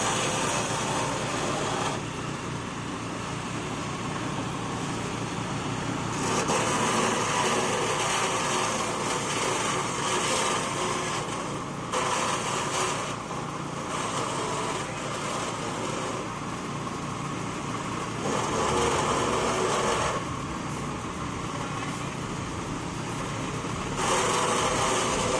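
A small petrol engine running a cassava-stump chopping machine. The sound shifts in level and pitch every few seconds.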